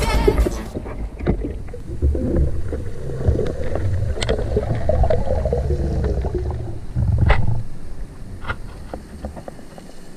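Muffled underwater sound: a low rumble of moving water with scattered sharp clicks, easing off about three-quarters of the way through.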